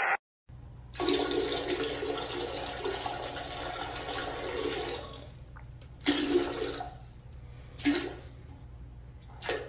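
Toilet flushing: a rush of water for about four seconds that then dies away, followed by three short bursts of noise.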